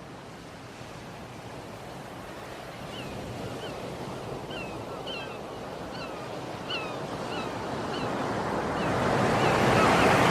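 Sea waves washing onto the shore, fading in and growing steadily louder, with short high chirps repeating about twice a second from about three seconds in.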